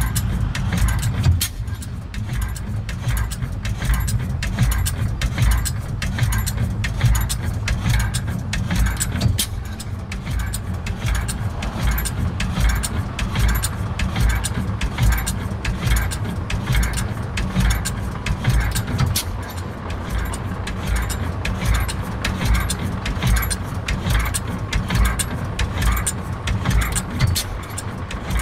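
Stationary flywheel engine running steadily: a low, even pulsing beat with a fast metallic clatter over it.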